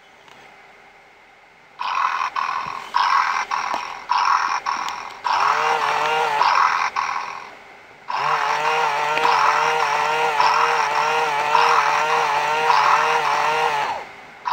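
A 2002 Hasbro/Tiger FurReal Friends electronic kitten toy playing its recorded cat sounds through its speaker. It starts about two seconds in with a pulsing purr-like sound, beating a little under twice a second. Longer wavering pitched stretches over a low steady hum follow.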